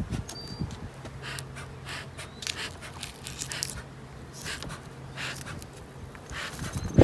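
Honeybees buzzing around an open hive as a steady low hum lasting about four seconds, with scattered light clicks and rustles of the hive frames being handled.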